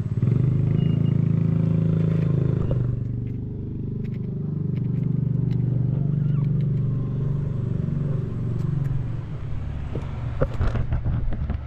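Cat purring close up: a steady, loud, rapidly pulsing low rumble. Near the end there are a few knocks and scrapes as the camera is handled and set down.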